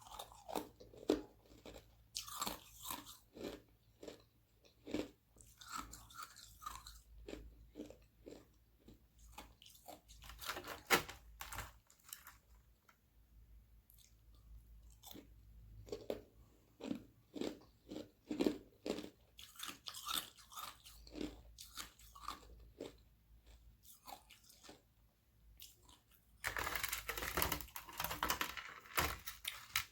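Close-miked biting and chewing of frozen carbonated-water ice sheets: a steady run of sharp, brittle crunches, with a longer, louder spell of crunching near the end.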